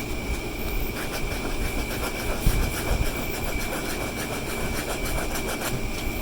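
Steady sanding of an epoxy and autobody glue-stick patch on a garden tractor's plastic steering wheel, with a constant high-pitched whine running under the scratchy noise.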